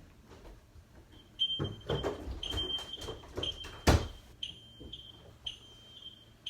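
Fire alarm beeping: a high-pitched tone repeating about twice a second, starting about a second in. Several knocks and one loud thump near the middle.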